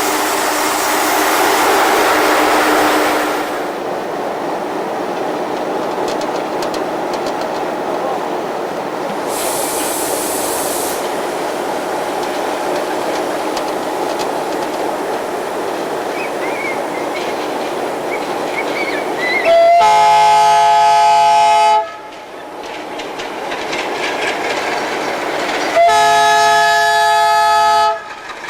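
Two long blasts of a locomotive's multi-note horn, each about two seconds, well apart near the end, over the steady running noise of trains at a crossing.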